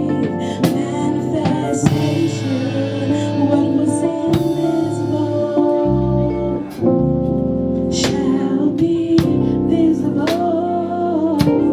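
Live gospel music: a band playing sustained chords with drum hits, and singing over it.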